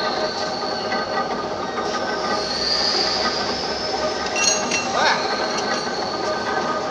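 Punch press machine running continuously, a steady metallic din with clinking and a high squeal about two to three seconds in.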